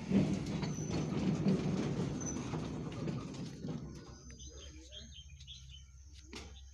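A low rumble that fades away over the first three or four seconds, then small birds chirping.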